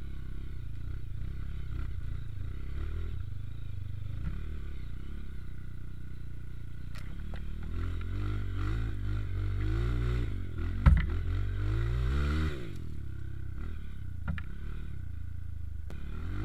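Motorcycle engine running, its pitch rising and falling as it revs through the middle stretch, with one sharp knock about eleven seconds in.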